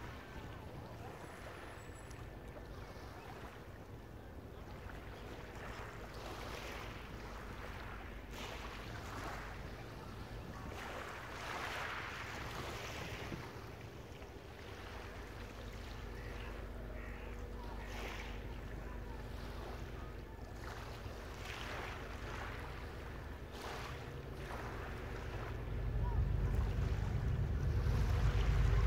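Small waves lapping on a shingle beach, with a low rumble of wind noise that gets louder about three seconds before the end.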